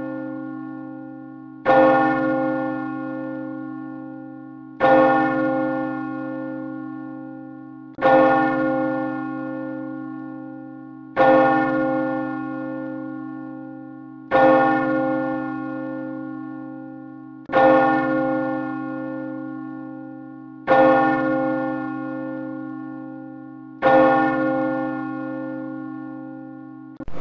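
A single church bell tolling slowly, eight strokes about three seconds apart, each on the same note and ringing out and fading before the next stroke.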